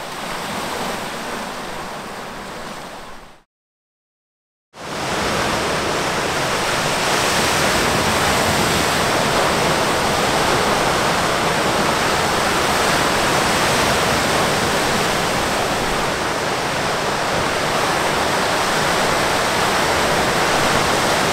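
Small waves washing onto a cobble beach; after a brief dead silence about three and a half seconds in, large wind-driven waves breaking steadily on a rocky shore, louder and unbroken.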